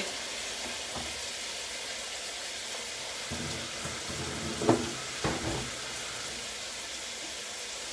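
Celery and onion sizzling steadily in olive oil in a stainless sauté pan, with two short knocks about five seconds in.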